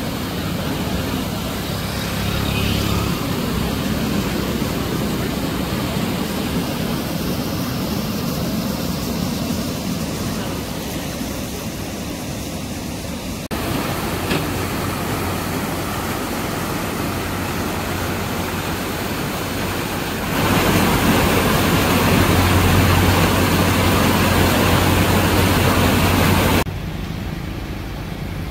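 Loud, steady rush of muddy floodwater pouring over a stepped weir and churning down a channel. The roar changes level abruptly a few times, louder about halfway and again near the end, then drops shortly before it closes.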